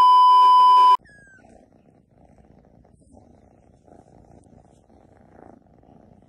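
A loud, steady television test-pattern beep for about a second, cutting off suddenly, followed by a cat purring softly.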